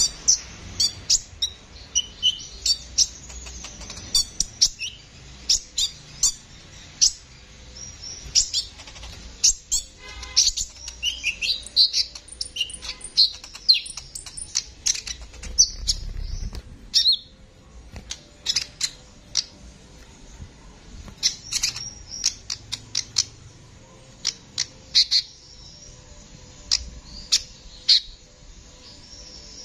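Male copper-throated sunbird (kolibri ninja) singing vigorously: a fast run of sharp, high chirps and twittering notes, with a quick rattling trill about ten seconds in.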